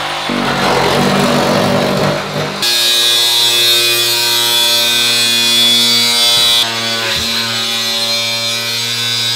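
Drywall and wallpaper being ripped out by hand, crunching and tearing. About two and a half seconds in, an electric angle grinder takes over, its cutting disc slicing through a shower wall panel with a steady high whine and a harsh hiss. Near seven seconds the hiss drops off and the grinder's motor keeps whining.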